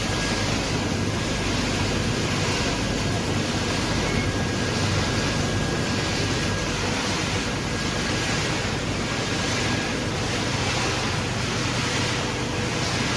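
A PCB crushing and separating line running: a steady, even machine noise with a faint low hum underneath.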